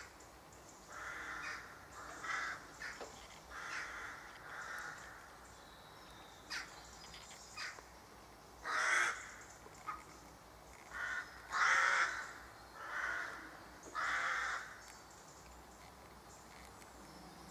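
Crows cawing in scattered groups of calls, loudest about nine and twelve seconds in. The calls die away a few seconds before the end.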